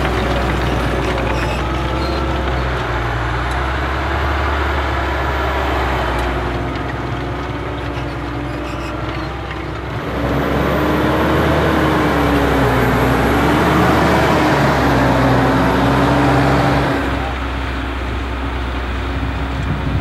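Massey Ferguson 7715 Dyna-VT tractor's diesel engine running under load while pulling a five-furrow reversible plough through the soil. The engine note wavers slightly in pitch and changes abruptly about halfway through and again near the end.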